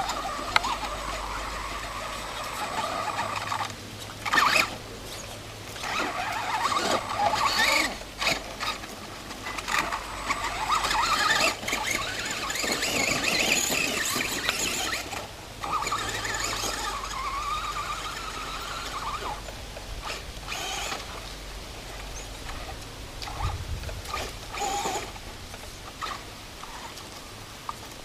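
Brushless electric motor of a Traxxas Stampede RC truck whining in repeated spells as the throttle is worked, the pitch rising and falling. Short bursts of tyre noise and knocks come in between as it runs over loose dirt and bumps.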